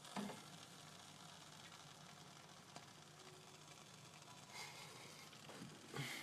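Near silence: room tone, with a few faint brief knocks.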